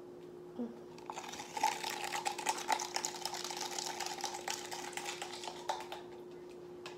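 Pink lemonade drink mix and water being shaken in a lidded cup, a rapid irregular rattling and sloshing that starts about a second in and stops about six seconds in, over a faint steady hum.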